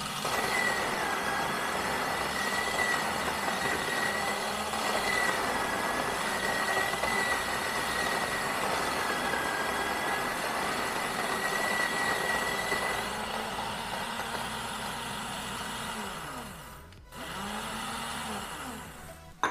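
Bodum Bistro electric burr grinder running steadily as it grinds about 20 grams of coffee beans, with beans being poured into the hopper while it runs. It stops about 17 seconds in. A shorter burst of sound follows, ending with a click near the end.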